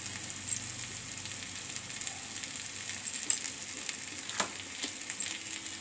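Onion-tomato masala sizzling steadily in oil in a kadai, with a couple of sharp clicks about three and four seconds in.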